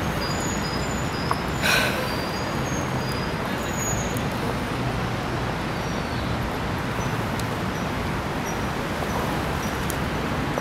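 Steady hum of street traffic around a town square, with a few short, high bird chirps over the first few seconds and a brief hiss about two seconds in.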